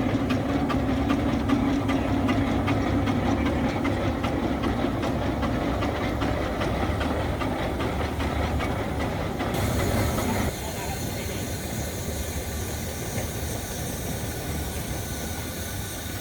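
Steam engine running with a steady hum and rapid ticking, then, about ten seconds in, a sudden change to a steady hiss of escaping steam.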